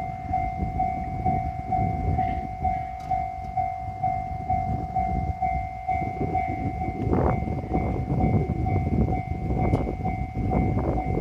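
Japanese level-crossing warning bell ringing steadily at about two dings a second, over a low rumbling noise that gets busier with clicks in the second half.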